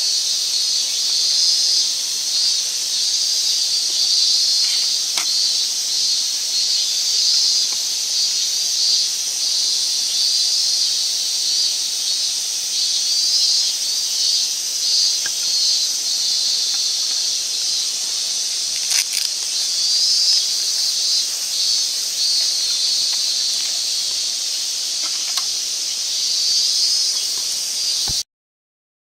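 Steady high-pitched hiss with a fluttering texture and a few faint clicks, cutting off suddenly near the end.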